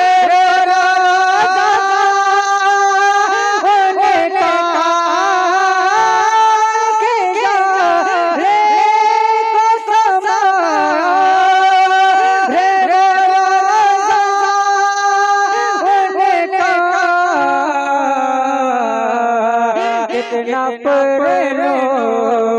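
A man singing a naat solo into a microphone: long held notes with wavering, melismatic ornaments, stepping down to a lower pitch about three-quarters of the way through.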